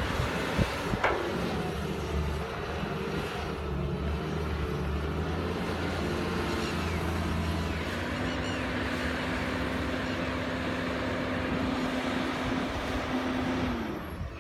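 CAT 320D excavator's diesel engine running steadily under load, with a sharp knock about a second in. A steady higher tone joins about halfway through and falls away near the end.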